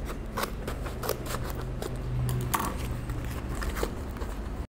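Small scissors snipping through a cardboard product package, a run of irregular sharp snips with rustling of the packaging. The sound cuts off suddenly near the end.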